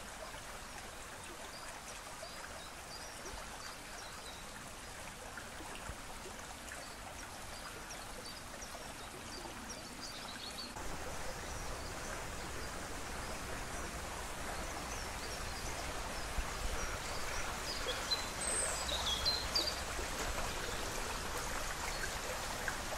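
River water flowing steadily, an even rushing sound that grows a little louder about ten seconds in, with a few faint bird chirps near the end.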